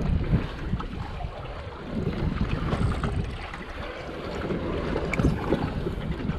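Wind buffeting the microphone in uneven gusts, with sea water sloshing and a few faint clicks.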